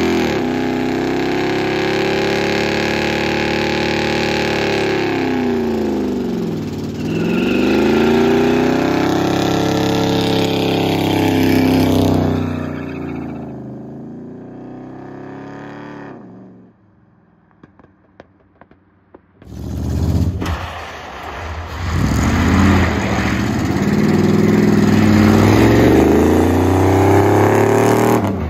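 A Dodge Charger's 400 big-block V8 held at high revs through a smoky burnout. The revs drop briefly about seven seconds in, climb again, then fade away. After a few seconds of near silence the engine revs hard again as the car slides on gravel.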